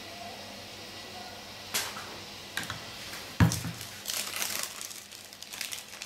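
Plastic wrapping of a packet of cheese slices crinkling as it is handled and opened. A few sharp clicks come first, then one heavier knock about three and a half seconds in.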